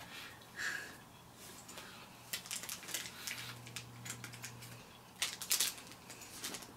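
Small plastic snack wrapper crinkling as it is handled, in scattered runs of light crackles, the busiest about five seconds in.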